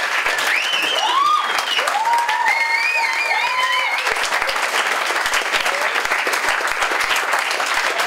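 Small audience clapping steadily in a living room, with a few voices calling out over the applause between about one and four seconds in.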